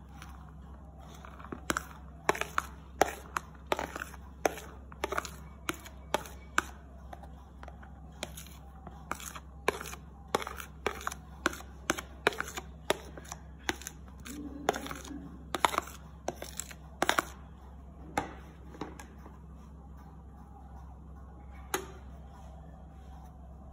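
Green plastic spoon scraping chopped greens off a ceramic plate and tapping against it, a quick, uneven run of sharp clicks that stops near the end.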